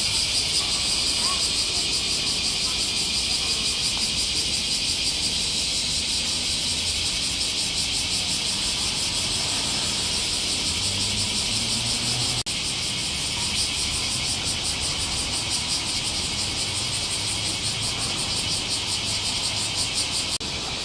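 Summer cicadas calling in chorus: a dense, high, steady buzzing drone with a fast pulsing throb.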